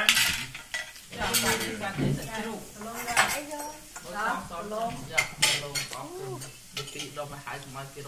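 Voices with several sharp clinks and clatters mixed in.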